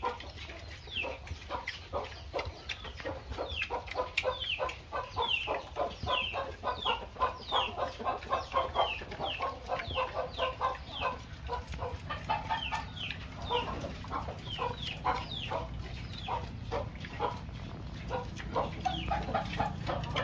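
Chickens clucking, with many short, high, falling chirps repeating rapidly throughout over a low steady rumble.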